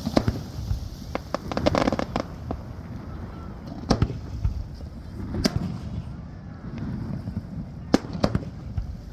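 Aerial fireworks shells bursting in a series of sharp bangs, with a quick run of crackling pops about two seconds in, over a steady low rumble of wind and surf.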